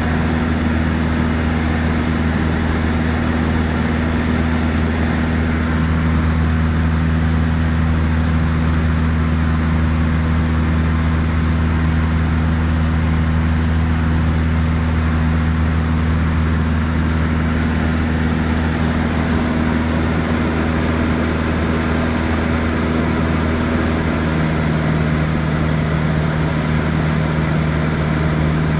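Cessna 152's four-cylinder Lycoming engine and propeller in steady cruise, heard from inside the cockpit as a constant drone over rushing air noise.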